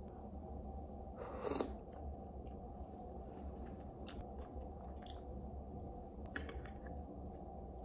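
A meal eaten with a metal spoon from a ceramic bowl: chewing, a brief scrape about a second and a half in, and several sharp spoon clicks, over a steady low room hum.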